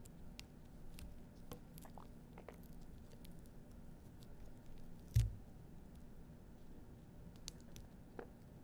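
Pomegranate arils being picked by hand from a piece of husk: faint scattered ticks and small crackles as the seeds pop loose and patter onto the pile. A single duller thump about five seconds in.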